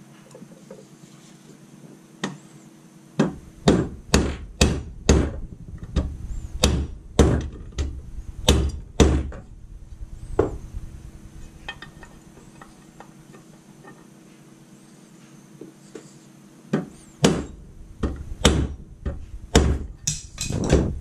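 Hammer blows on a 24 mm socket, driving a steel bearing cup into an aluminium engine side cover until it sits flush. About a dozen sharp strikes come in quick succession from about three seconds in, then a pause, then a second run of strikes near the end.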